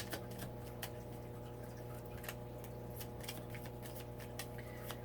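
Tarot cards being handled and laid down: sparse, irregular soft clicks over a steady electrical hum.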